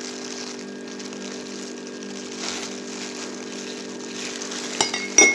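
Thin plastic gloves crinkling as they squeeze and dab a dye-soaked paper towel wrapped around an egg, over a steady low hum of several tones, with a couple of sharp clicks near the end.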